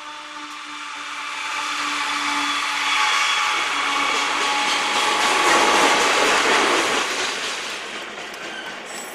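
A freight train with GE locomotives and autorack cars passes close by. A steady pitched tone fades over the first couple of seconds. A broad rushing rumble then swells to its loudest around the middle and eases off as the cars roll past.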